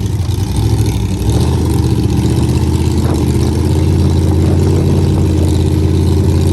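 Car engine running, uneven at first, then settling about a second and a half in into a steady drone.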